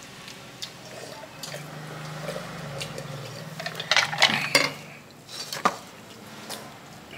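Wooden chopsticks clicking and scraping against a styrofoam takeaway box as food is picked up. The clicks are scattered, with a louder cluster about four seconds in and another a little later.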